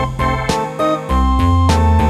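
Instrumental background music, with a new note or chord about every half second and a deep bass line coming in about a second in.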